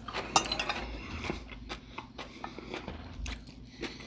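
Cutlery and dishes clinking and knocking in scattered small clicks while food is handled at a table, with one sharper knock about a third of a second in.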